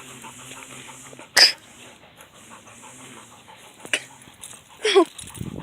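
Black Labrador retriever puppy panting, with a sharp knock about a second and a half in and a fainter one near four seconds.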